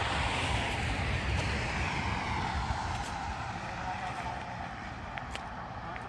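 A passing vehicle's rumble, sliding slowly down in pitch and fading a little as it goes by.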